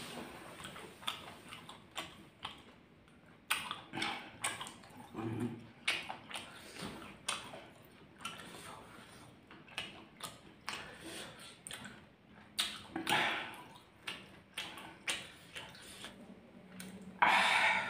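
Close-miked chewing of spicy rolled egg and whole bird's eye chilies: irregular wet crunches and mouth clicks. Near the end, a louder wet squelch as fingers dig into the chili sauce in the stone mortar.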